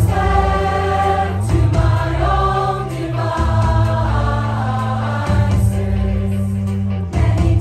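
A large mixed choir singing long held chords in harmony, moving to a new chord about every two seconds.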